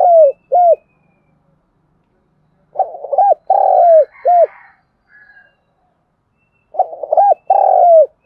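Spotted dove cooing its song: the end of one phrase, then two more phrases about four seconds apart, each a run of three or four coos. It is a caged decoy bird calling to lure wild spotted doves.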